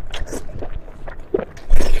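Close-miked eating: a person chewing steamed pork with wet mouth clicks and smacks, and a louder burst near the end.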